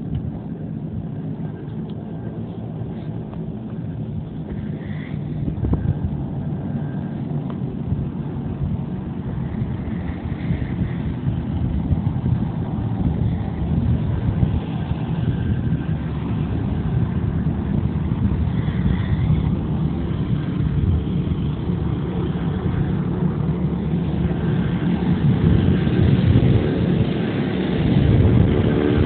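Twin turboprop engines of a Beechcraft King Air running as a low, steady rumble that slowly grows louder as the aircraft nears, with a clear engine tone coming in near the end.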